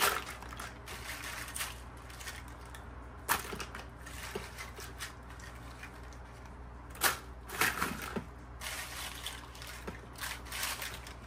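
Dried chiles de árbol being dropped and handled into a blender jar: scattered light clicks, taps and rustles, with a few sharper taps about three seconds in and around seven to eight seconds in.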